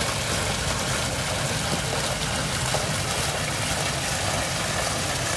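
Water from a row of fountain spouts falling and splashing steadily into a shallow pool.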